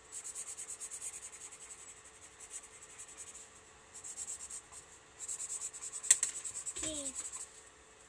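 A dried-out blue marker coloring in on sketchbook paper with rapid back-and-forth strokes, in runs broken by short pauses. There is a sharp tap a little after six seconds in.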